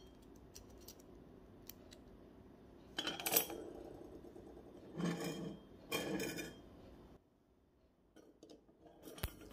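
Small metal nut and bolt clinking against the metal body of a rat-trap non-return valve as they are handled and fitted by hand, in three short bursts about three, five and six seconds in.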